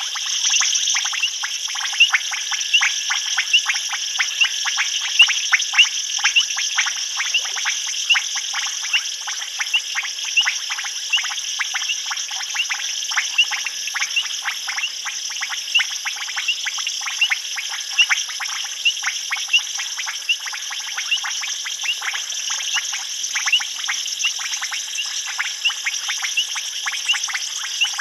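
Chorus of many frogs calling in quick, short notes, several a second, over a steady high-pitched drone of insects.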